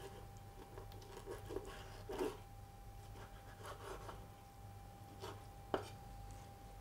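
Chef's knife cutting sardine fillets on a wooden board: faint scraping strokes and soft taps, with a louder tap about two seconds in and a sharp click of the blade on the wood a little before the end.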